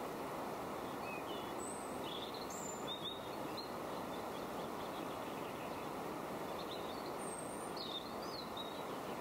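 Small birds giving short chirps and brief calls, in two loose clusters, over a steady rushing background noise.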